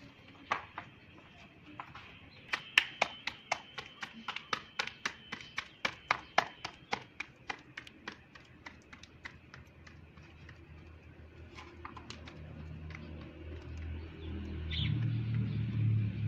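Hands slapping a ball of roti dough flat between the palms: a quick run of sharp pats, about three or four a second, that thins out and stops. A low rumble builds near the end.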